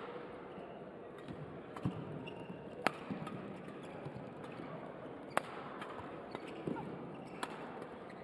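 Badminton rally: sharp cracks of rackets striking the shuttlecock, roughly every two to three seconds, with softer thumps of players' footsteps on the court.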